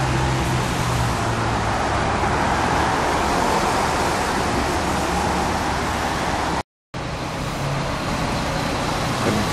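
Road traffic on a wet road: a steady hiss of tyres with the low hum of engines as a city bus approaches. The sound drops out for a moment about seven seconds in, at an edit, and then continues with the traffic and bus engine.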